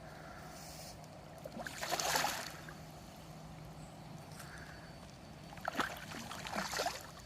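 A hooked carp splashing and thrashing at the water's surface as it is played in close to the landing net: one splash about two seconds in, then a longer run of choppy splashes near the end.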